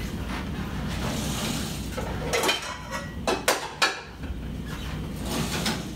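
Pots and pans clanking in a low kitchen cupboard as a saucepan is pulled out: a few sharp knocks between about two and four seconds in, over a low steady hum.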